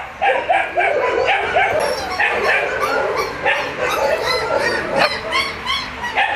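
Many dogs barking and yipping at once: short overlapping calls, several a second, with no let-up.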